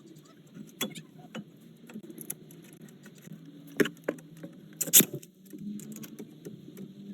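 Scattered metal clinks and taps of hand tools and brake hardware as a disc-brake caliper is slid over the new pads and its pins are bolted down. The loudest clinks come about four and five seconds in.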